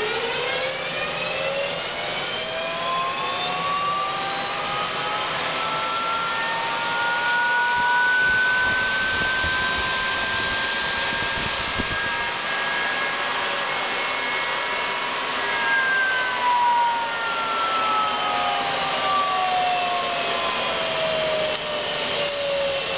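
Garrett 100-82 jet engine turned over dry by its electric starter motor, with no fuel or ignition: a whine that rises steeply at first, then climbs slowly and holds for several seconds. From about two-thirds of the way through, it falls steadily in pitch as the rotor spins down.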